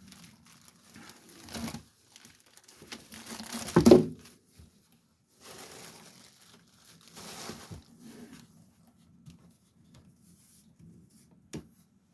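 Packaging crinkling and rustling in several bouts as a bookshelf speaker is unwrapped and lifted out of its box, with a loud thump about four seconds in.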